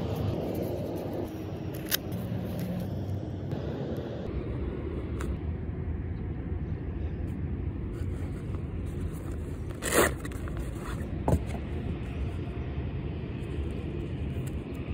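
Steady low outdoor rumble like distant traffic, under the handling of a goalkeeper glove and its storage bag: a sharp click about two seconds in, and a louder brief scrape about ten seconds in with a smaller one just after.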